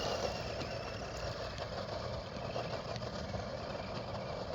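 1:10-scale brushless electric RC monster truck driving away over the ground, its motor and tyres making a steady whirring rush that fades gradually as it moves off.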